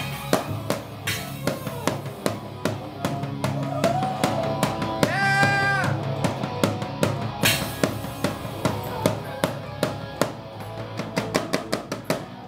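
A rock band playing: a drum kit keeping a steady beat under electric guitar, with a held, wavering note about halfway through.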